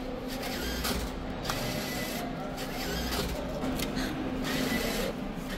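Automated currency exchange kiosk at work: its mechanism whirring with a faint steady hum and irregular clicks.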